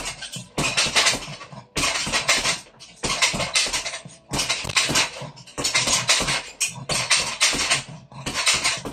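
Punches landing on a hanging heavy bag in quick 1-2-3 combinations, each combination a burst of rapid smacks with metal rattling from the bag's hanging chain and stand, about one combination a second with short pauses between.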